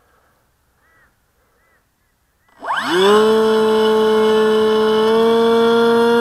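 The electric motor and propeller of a small RC plane spool up sharply about two and a half seconds in, rising quickly in pitch, then hold a loud, steady whine at full launch throttle.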